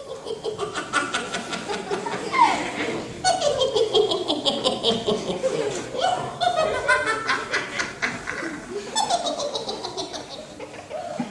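Witch's cackling laughter: several drawn-out peals of rapid 'ha-ha-ha', each falling in pitch, the first loud peal about two seconds in and the last near the end.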